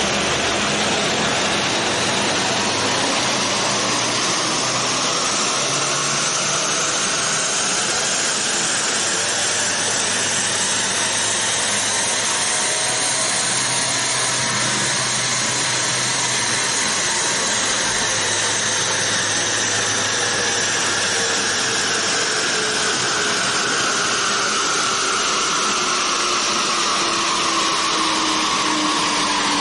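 Subaru WRX STI's turbocharged flat-four running on a chassis dyno with its wheels spinning the rollers. A whine climbs steadily in pitch for about half the time, then falls slowly as the car winds back down, over a loud rushing noise throughout.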